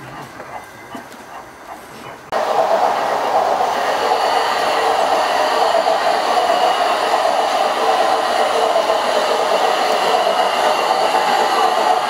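Gauge 1 model train running on the layout's track. About two seconds in, the sound jumps abruptly from a quiet stretch with faint clicks to a loud, steady rolling hum with a high ringing tone, as the model steam locomotive and its coaches pass.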